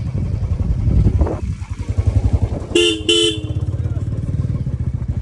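Motorcycle engine running with a fast, even low pulse, and two short horn beeps in quick succession about three seconds in.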